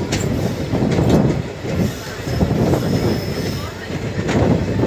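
Passenger train coaches rolling along the track, heard from an open coach doorway: a steady rumble of wheels on rail with a couple of rail-joint clacks, and a faint high wheel squeal through the middle as the train takes a curve.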